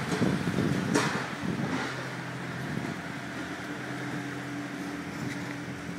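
A steady low motor hum, like a vehicle engine running, with a rough rustling noise over the first two seconds and a single sharp click about a second in.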